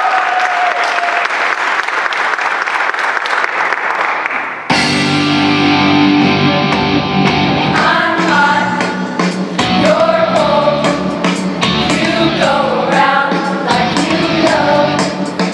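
Audience applause and cheering. About four and a half seconds in, a pop backing track starts abruptly, and a show choir sings and dances over it.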